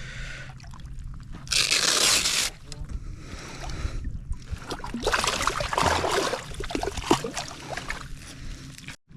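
Water splashing and sloshing around a wading angler, in two louder stretches, one about a second and a half in and one from about five to seven and a half seconds, with scattered small clicks.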